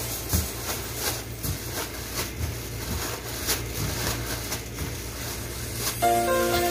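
Clear plastic oven bag crinkling and rustling in irregular crackles as it is shaken and squeezed by gloved hands. Music comes in near the end.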